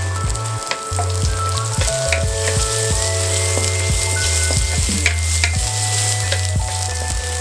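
Chopped onion and garlic sizzling in hot oil in a stainless steel pan as a wooden spatula stirs them, with scattered clicks and scrapes of the spatula against the pan.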